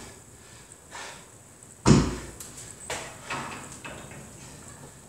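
A heavy thud about two seconds in and a few lighter knocks before and after it: dumbbells meeting the gym floor during a dumbbell man maker.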